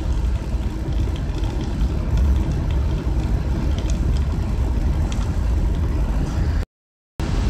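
Car cabin noise while driving on a wet road: a steady low engine and road rumble with tyre hiss from the wet pavement. The sound cuts out completely for about half a second near the end.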